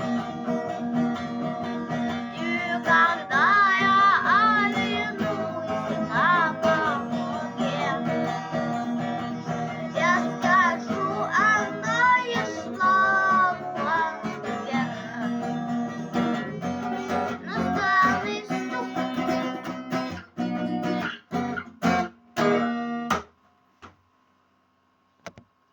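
Singing over a strummed guitar. Near the end the playing breaks into a few separate strums and stops.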